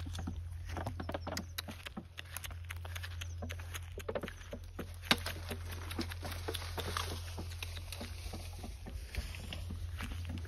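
Footsteps crunching and rustling through dry grass and brush: many small crackles and snaps, over a steady low hum.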